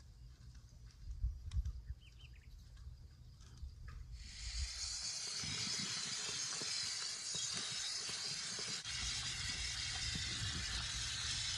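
Outdoor wall tap running, its stream splashing onto freshly picked callaloo leaves in a bowl as they are rinsed. The water starts suddenly about four seconds in and then runs steadily.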